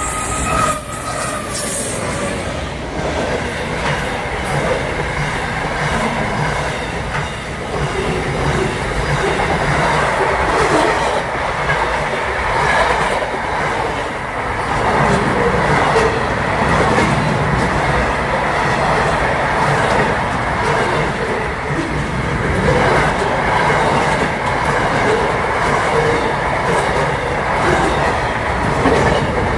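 SCT freight train passing close by, its locomotive followed by a line of wagons, with the steady rumble of the train and the wheels clattering over the rails.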